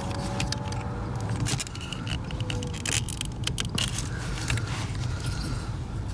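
Sharp plastic clicks and small rattles of seat wiring-harness connectors being worked loose and unplugged under a car seat, over a steady low hum.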